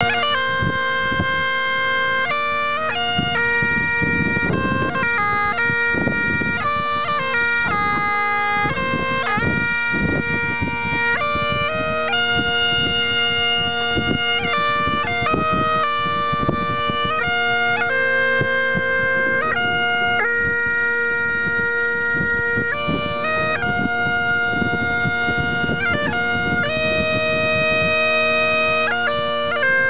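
Great Highland bagpipes playing a tune, the melody changing notes every second or so over the pipes' steady drone.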